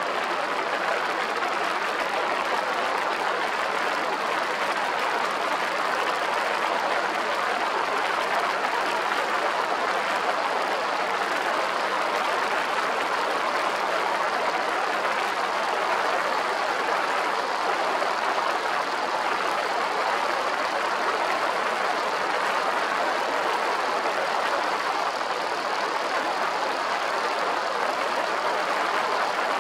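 Steady rushing noise of a motorcycle cruising at highway speed: wind and road noise with no distinct engine note.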